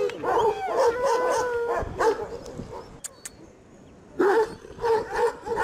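Dog whining in wavering, drawn-out cries, then from about four seconds in a run of short yelps, roughly two a second.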